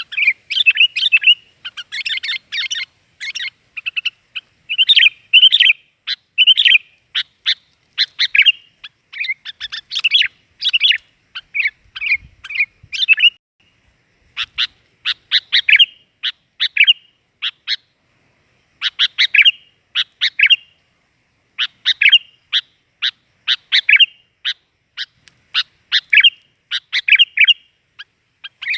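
Sooty-headed bulbul (kutilang) singing: loud, bright chirping phrases repeated about once a second, with a couple of short pauses.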